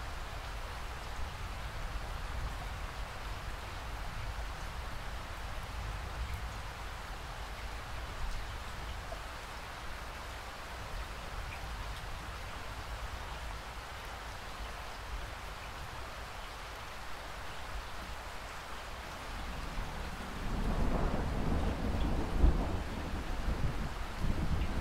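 Steady rain falling, with a low roll of thunder that swells in near the end and runs on through it.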